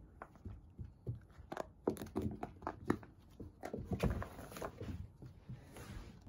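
Shiba Inu puppy playing with a small plastic ball, a quick, irregular string of taps, knocks and scuffs from its paws and the ball on the carpet.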